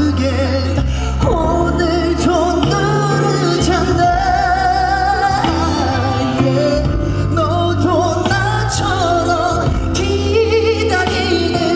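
A male pop singer singing a ballad live, his held notes wavering with vibrato, over band accompaniment with sustained bass notes.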